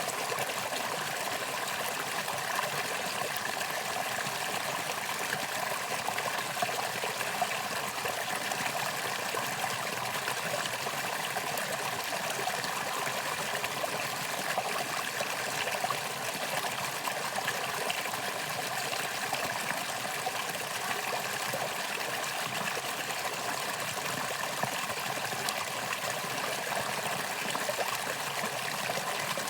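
Valley stream flowing steadily: an even, unbroken rush and trickle of running water.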